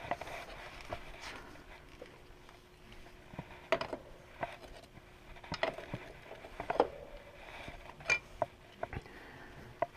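Scattered light metallic clicks and knocks as the loosened left bike pedal is unthreaded from the crank arm and handled along with the wrench, over a faint steady hum.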